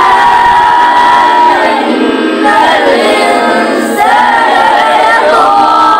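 Melodic Quran recitation: a voice chanting the Arabic verses in tajweed style, drawing out long held notes with gliding pitch between phrases.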